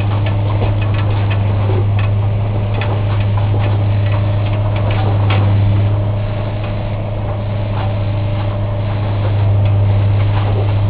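Track-renewal train's engine running with a steady low drone that swells slightly about halfway through and again near the end, with scattered clicks and knocks from the machine working along the rails.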